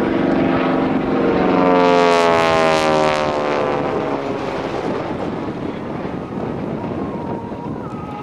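A North American T-6 Texan's Pratt & Whitney R-1340 radial engine and propeller flying past. It is loudest about two to three seconds in, with the pitch falling as the plane goes by, then fades to a steadier drone.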